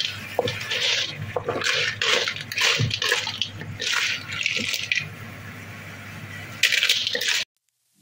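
Cooked sea snails in their shells being stirred with a wooden spatula in a wok of thick, wet sauce: irregular bursts of wet clattering and sizzling. It cuts off suddenly near the end.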